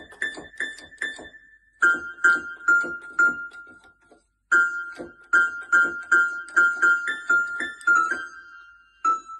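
Portable electronic keyboard sounding short piano-like notes as a cat presses a key with its paw: the same note struck over and over, about two or three times a second, in runs broken by short pauses. After the first pause the repeated note drops slightly in pitch.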